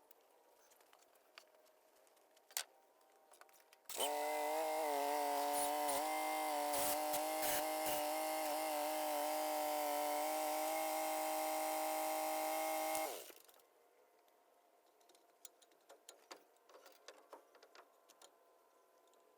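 A handheld electric power tool's motor runs steadily at an even pitch for about nine seconds, starting suddenly about four seconds in and winding down quickly at the end. Faint taps and clicks come before and after.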